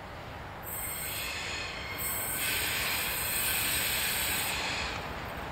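Freight train coming in on the rails, its wheels giving a high-pitched hiss: a short stretch about a second in, then a longer, louder one from about two seconds until near the end, over a low steady rumble.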